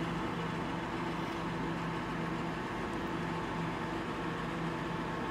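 Steady background hum of a running machine or fan, even and unchanging, with a few constant tones and no knocks or other sudden sounds.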